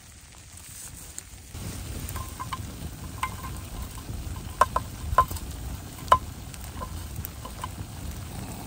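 Meat and onion frying in a metal camp pot, stirred with a spoon that clinks sharply against the metal several times. The sizzling gets louder about a second and a half in.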